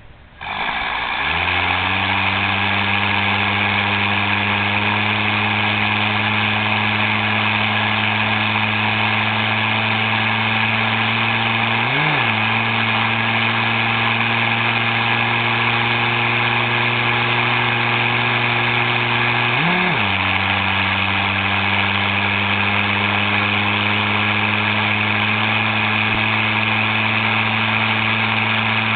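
Engine of a machine carrying a drill attachment, starting up and running at a steady idle. Twice its pitch briefly rises and drops back, about a dozen seconds in and again some eight seconds later. A steady higher hiss runs along with it, and no drilling strikes are heard.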